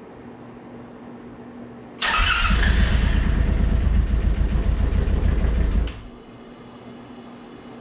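The Yamaha Wolverine X4's freshly rebuilt, flood-damaged parallel-twin engine being cranked over by its starter: a loud, rapid churning starts suddenly about two seconds in, runs for about four seconds and cuts off, without the engine settling into a run.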